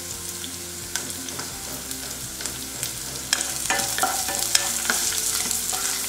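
Shallots, curry leaves, garlic, ginger and chillies sizzling in hot oil in a frying pan. From about three seconds in, a wooden spatula scrapes and knocks against the pan as they are stirred and sautéed.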